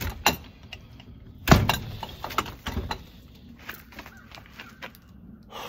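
Irregular knocks and clatter, the loudest knock about a second and a half in, with a few lighter clicks after it.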